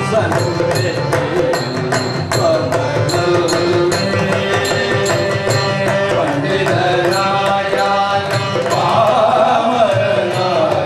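Carnatic-style devotional bhajan music: a group of singers with harmonium accompaniment and mridangam drumming keeping a steady beat.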